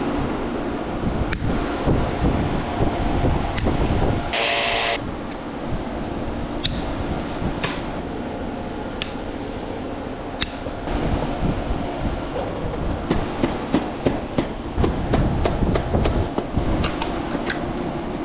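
Hand tools clinking and tapping on metal engine parts during a two-stroke dirt bike top-end rebuild, over a steady fan-like hum. A short loud hiss comes about four seconds in, and the clicks and knocks come quick and close together near the end.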